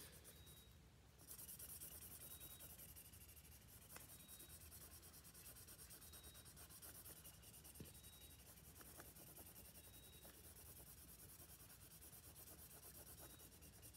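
Faint, steady scratching of a felt-tip marker colouring on paper, starting about a second in, with a couple of faint clicks.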